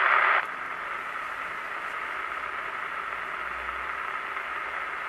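First-generation President Lincoln CB radio's receiver hiss from its speaker, tuned to 27.200 MHz with the antenna disconnected. About half a second in, the NB noise blanker is switched on and the hiss drops sharply to a quieter steady level.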